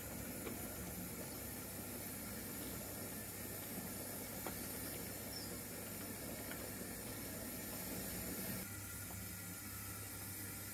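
O gauge model goods train running along the layout's track: a faint steady rumble and hiss with a few light clicks of wheels over rail joints. Near the end the sound shifts to a steadier low hum.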